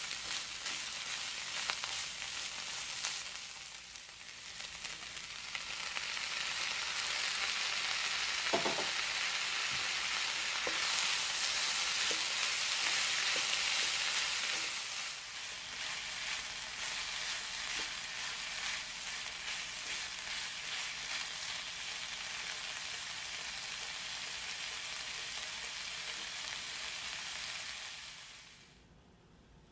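Ground beef, onion and tomato sizzling in a frying pan while a spatula stirs and scrapes it, with one sharp tap on the pan early on. The sizzle is loudest in the middle and dies away near the end.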